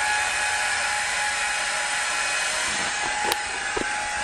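Recorded hair-dryer noise played back as sleep noise for a sleeping baby: a steady whooshing hum with a faint steady whine. A light knock or two a little after three seconds in.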